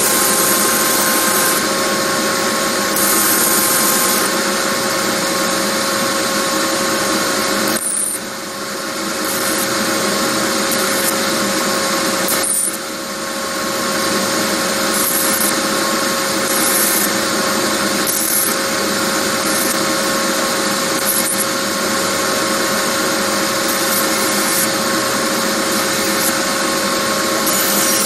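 Belt grinder running steadily with a constant motor hum while a steel knife blade is pressed against the abrasive belt in repeated passes. Each pass gives a brighter grinding hiss that comes and goes.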